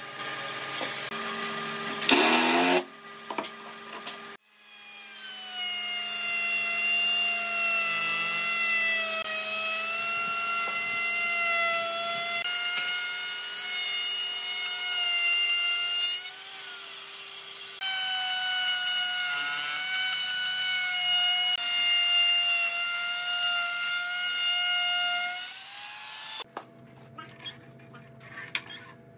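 Power tool cutting wood, with a steady whine that sags a little in pitch under load. It runs for about twelve seconds, stops briefly, then cuts again for about eight seconds. A few light knocks follow near the end.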